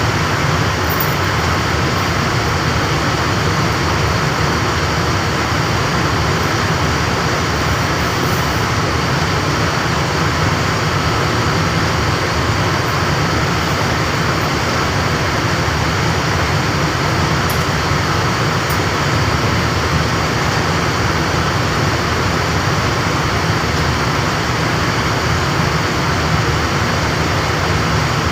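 Refrigeration equipment running steadily, a constant dense mechanical noise with a faint high whine held throughout.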